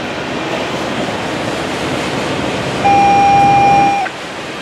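Double-stack container train on well cars rolling past, a steady rushing rumble of wheels on rail. About three seconds in, a single steady high-pitched tone sounds over it for just over a second and cuts off, the loudest thing heard.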